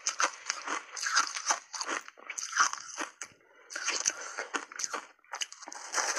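Biting and chewing into a block of ice coated in matcha tea powder, a rapid run of sharp, irregular crunches with a short pause a little past halfway.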